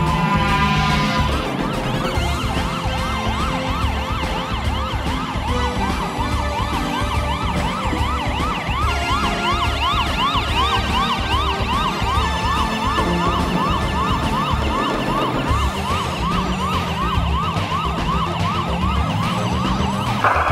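Fire engine siren on a fast yelp, its pitch sweeping up and down a couple of times a second, after a falling wail near the start. A steady low thumping beat runs beneath it.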